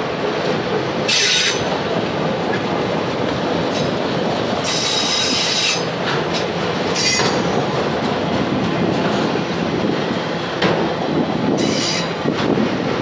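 Autorack freight cars rolling past: a steady rumble of steel wheels on rail, broken by several brief high-pitched wheel squeals, the longest lasting about a second.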